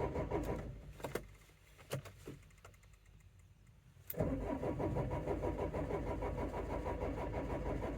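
Starter motor cranking the Renault Trafic's 1.9 dCi diesel engine, which does not fire: one cranking attempt trails off in the first second, a few clicks follow, then from about four seconds in it cranks again with an even rhythm. The cranking sounds a little bit weak, and the engine is cranking but not starting.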